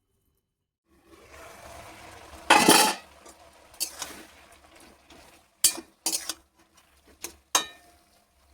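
Metal utensils clinking and scraping against a cooking pot: a louder scrape about two and a half seconds in, then a run of sharp clinks that ring briefly, over a faint steady hiss.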